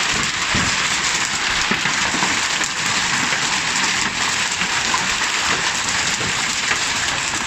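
Heavy rain and hail pelting down in a violent storm: a dense, steady hiss of drops and hailstones striking the surfaces around.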